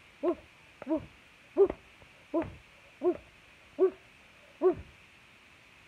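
A voice making a string of short 'hoo' cries, about seven in a row, a little under one a second and a half apart, each rising and falling slightly in pitch, like sobbing.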